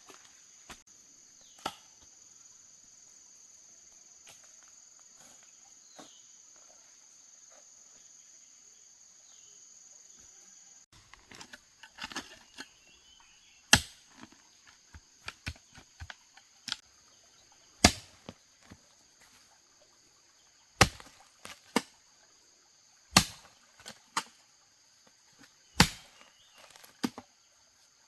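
Wood being chopped with a blade: sharp strikes about every two to three seconds, with lighter knocks between, starting about a third of the way in. Before that, a steady high hum of insects with a few scattered clicks.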